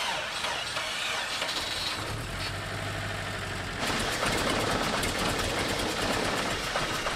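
Engine sound during a jump-start attempt on a GAZelle van with a flat battery: a steady mechanical noise that steps up in loudness about four seconds in.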